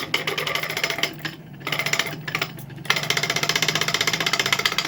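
A ceiling fan running with a loud, rapid rattling knock over its motor hum, getting louder about three seconds in. The noise comes from a shaft worn and cut through where the bearing sits.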